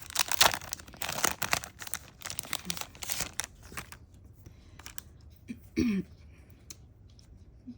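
Crinkly packaging being torn open and handled, with dense crinkling and tearing for about four seconds, then a few quieter rustles.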